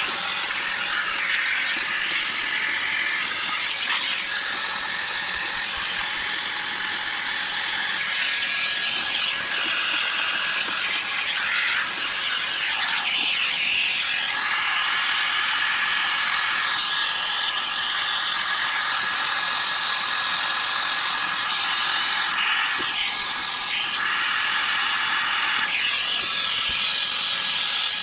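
Vacuum cleaner running steadily, sucking dust out of a sliding mitre saw. Its rushing air note changes briefly a few times as the nozzle moves.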